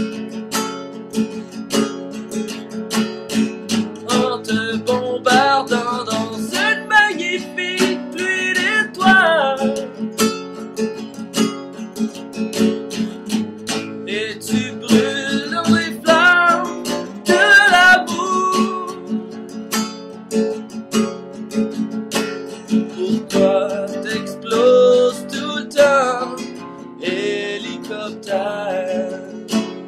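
Acoustic guitar strummed steadily, with a wavering, wordless sung melody over the chords.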